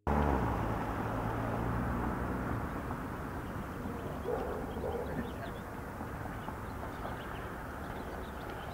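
Raw outdoor street sound of BMX bikes rolling down an asphalt hill: a steady rumble and hiss, with a low hum for the first two seconds or so.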